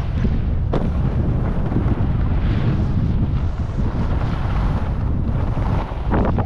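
Wind buffeting the microphone as the rider slides down a packed ski slope, over a steady hiss of snow scraping under the board. A sharp click comes about a second in, and there are a couple of harder scrapes near the end.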